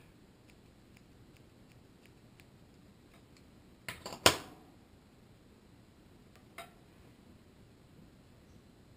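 Mostly quiet, with a few small clicks and taps as fly-tying tools and thread are handled at the vise; the loudest is a sharp click about four seconds in, with a fainter one a couple of seconds later.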